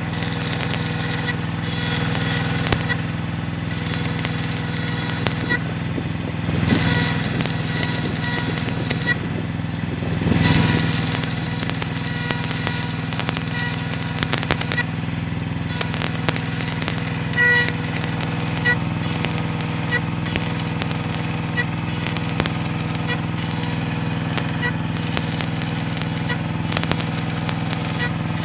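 A small engine running steadily at idle, with scattered crackles and clicks over it and two brief louder swells.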